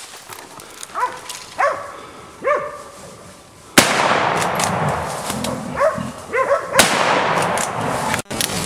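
Hog-hunting dogs barking in short bursts, then a loud gunshot about four seconds in and a second shot about three seconds later, with loud noise running on after the first shot and more barks between the shots.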